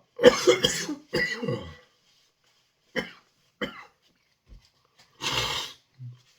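A man coughing hard and clearing his throat in a fit: two heavy coughs in the first two seconds, two short ones about three seconds in, and another strong cough near the end. He is choking on hot chilli powder caught in the back of his throat.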